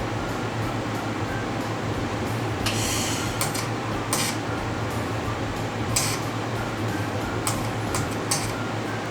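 Metalworking sounds over a steady low hum: a series of short, sharp, hissy metallic scrapes and clinks. The longest comes about three seconds in and a sharp one near six seconds.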